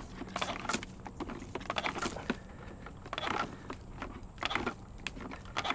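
Hand clippers crunching and clicking in irregular bursts as they are worked at something hard to cut, a cut that is not going easily.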